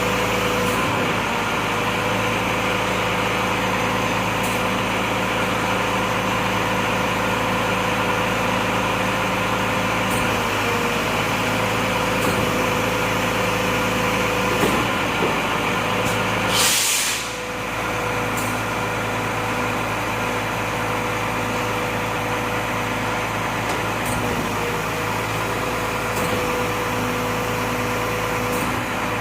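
Volvo FM 370 truck's diesel engine idling steadily. Its air brake system lets out one hiss of air, about a second long, a little over halfway through.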